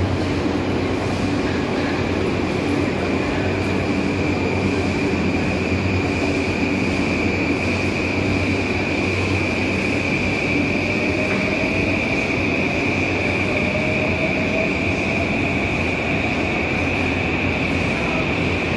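Electric commuter train running: a steady rumble of wheels on track with a high, even whine over it, and a faint whine rising slowly from about ten seconds in.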